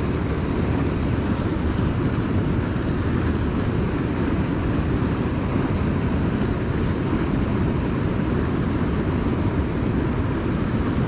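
Steady low rumbling noise with no distinct events, like outdoor background rumble picked up by a body-worn action camera.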